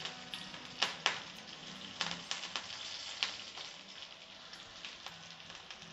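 Crushed garlic and curry leaves frying in hot oil in a pan: a steady sizzle with scattered crackling pops, the sharpest about a second in, easing a little toward the end.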